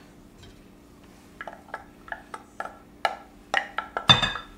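A wooden spoon tapping and knocking against a glass measuring cup, scraping the last of the cream-and-egg mixture into the bowl: about a dozen sharp, irregular taps that start about a second and a half in and grow louder, the loudest near the end.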